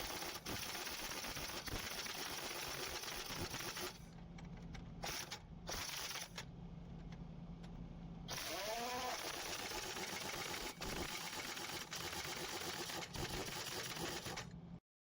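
A drill running with a steady, noisy clatter. It goes quieter for about four seconds in the middle, leaving a low hum, then runs loud again.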